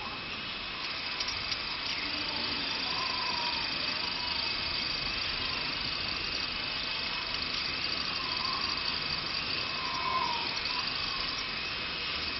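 Sound-effect track of steady hiss with a constant high whine and faint wavering squeals, like a machine running.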